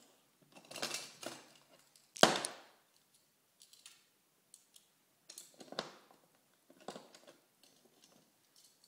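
Toy trains clacking and clattering against each other and the wooden track as a small child handles them, in a scattered series of short knocks; the loudest is one sharp knock about two seconds in.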